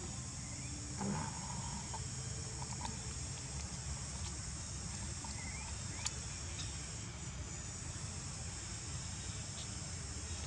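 Steady high-pitched drone of an insect chorus over a low outdoor rumble, with a few faint ticks.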